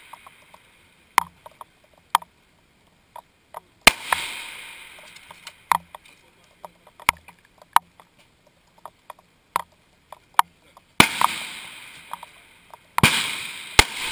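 Rifle shots on a firing line, each a sharp crack followed by a long rolling echo: one about four seconds in, then two more about two seconds apart near the end. Small clicks and knocks of handling between the shots.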